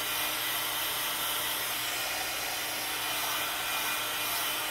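Handheld heat gun blowing hot air, a steady whooshing fan noise with a faint motor hum.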